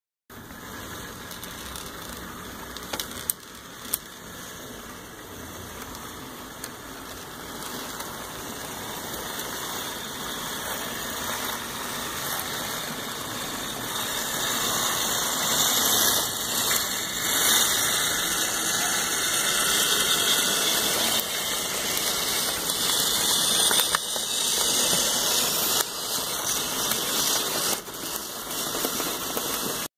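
HO scale model diesel locomotives, nine coupled together, running on the rails: the whirr and rattle of their small electric motors and wheels, growing louder about halfway through as the consist passes close. Two sharp clicks a few seconds in.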